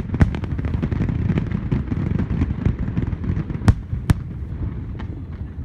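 Fireworks display: a rapid crackle of many small bursts over a low continuous booming, with two sharper, louder bangs a little under four seconds in, the crackling thinning out toward the end.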